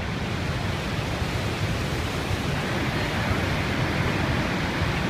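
The Horseshoe Falls at Niagara: a steady rushing roar of heavy water pouring over the brink, growing a little louder and brighter in the second half.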